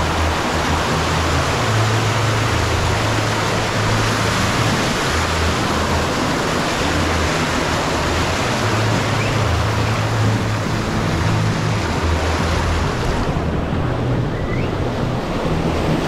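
Whitewater rushing and splashing around an inflatable tube riding down a water-park wild river ride: a loud, steady churning noise.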